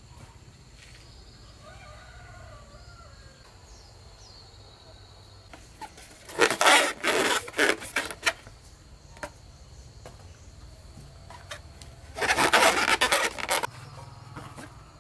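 Two bursts of rustling and crinkling as small rubber balloons and their plastic packets are handled, the first about six seconds in and lasting about two seconds, the second near the end.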